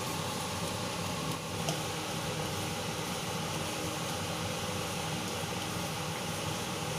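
Garlic and breadcrumbs stirred with a wooden spatula in a stainless steel wok, over a steady hiss and hum of kitchen noise, with a faint tap about a second and a half in.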